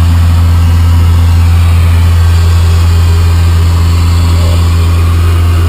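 ATR 72 twin-turboprop airliner's engines and propellers droning steadily, heard inside the passenger cabin: a loud, even low hum with a few fainter steady tones above it.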